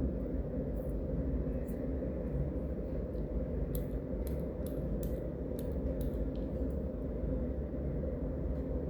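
Pencil scratching on paper in short, quick strokes, most of them bunched around the middle, over a steady low hum of street noise.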